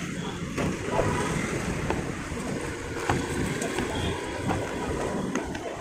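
Steady low rumbling background noise with a few faint clicks scattered through it.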